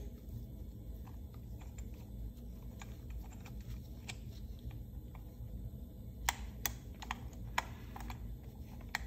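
Light irregular clicks and taps of a new piston and wrist pin being handled and lined up on a Husqvarna 346 XP chainsaw's connecting rod, with a few sharper clicks about six to seven and a half seconds in. A low steady hum lies underneath.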